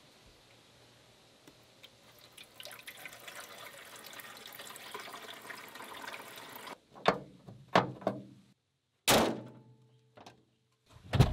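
Water poured from a plastic jug into a car's windshield washer fluid reservoir, a steady pouring that grows gradually louder for several seconds. Then a few knocks, and about nine seconds in a single loud slam of the hood shutting.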